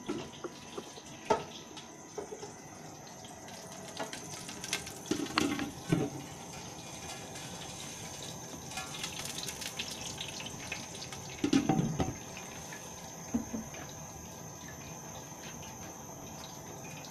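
Steady hiss from a lit gas burner under a cooking pot, with a few short clanks of the pot's glass lid being handled, the loudest about two-thirds of the way through.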